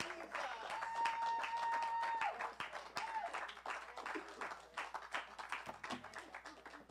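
A small audience applauding, the clapping thinning out and fading toward the end. A long, high held cheer rises over the clapping about a second in, with a shorter call a little later.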